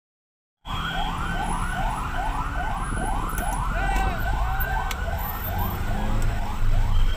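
Ambulance siren in a fast yelp, a rapid run of rising sweeps about three a second, cutting in about half a second in over the low rumble of road traffic.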